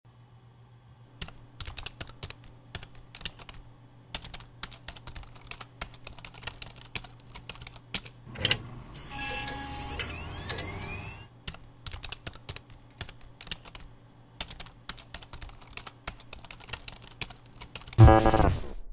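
Fast typing on a laptop keyboard, a rapid run of light key clicks. Around the middle the clicking gives way for a couple of seconds to an electronic whooshing swell with rising whistles, then the typing resumes, and near the end a loud electronic buzzing burst cuts in.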